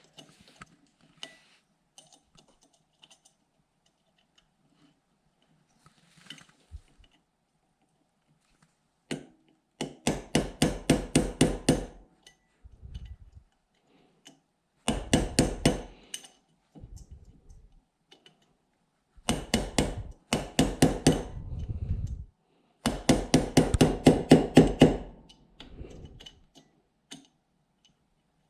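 Small hammer tapping a punch to drive the bolt-catch roll pin flush in an AR-15 lower receiver: rapid light metallic taps, about five or six a second, in several runs with pauses between.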